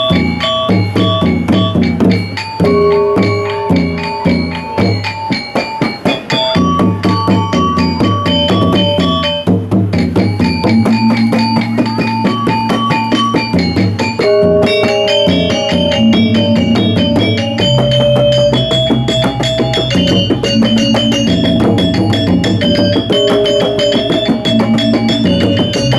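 Balinese gamelan gong kebyar ensemble playing: bronze metallophones ringing in fast, dense interlocking patterns over kendang hand drums. About two-thirds of the way through, a deep low tone enters and holds under the metallophones.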